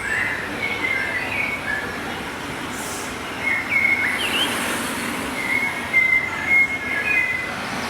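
Small birds chirping in short, high trills over a steady rushing noise.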